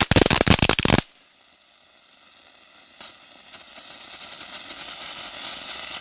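Skull-shaped novelty firework fountain spraying sparks with a dense crackling hiss that stops abruptly about a second in. After a short quiet pause, a fainter crackling fizz starts about halfway through and grows steadily louder as the firework burns bright again.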